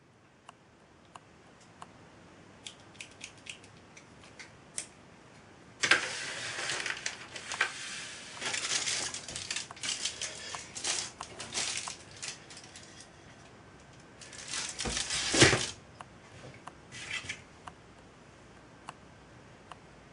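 Aluminium kitchen foil crinkling and crackling as it is handled, after a few light clicks, with a louder rustle ending in a thump about fifteen seconds in.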